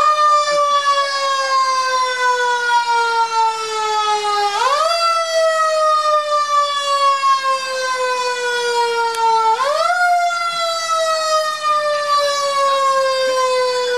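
Fire engine siren wailing, each cycle climbing quickly and then sliding slowly down in pitch, repeating about every five seconds.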